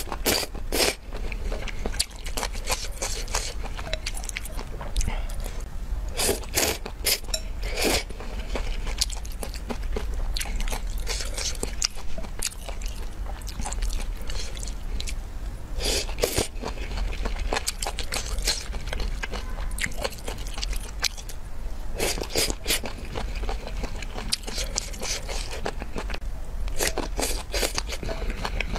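A person slurping noodles and chewing close to the microphone, eating from a bowl of spicy soup noodles. Wet slurps and chewing clicks come in clusters every few seconds.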